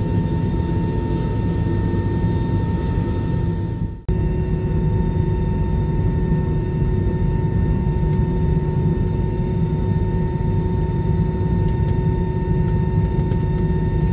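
Steady drone inside an Airbus A320 cabin: engine and airflow noise with a constant whine running through it. The drone breaks off for a moment about four seconds in, then carries on unchanged.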